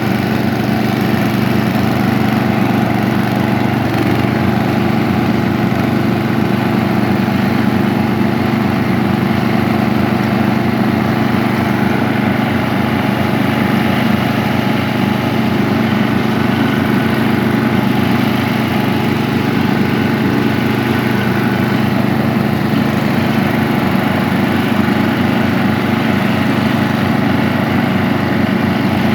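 Small engine of a vintage riding lawnmower, running steadily at an even speed as the mower is driven.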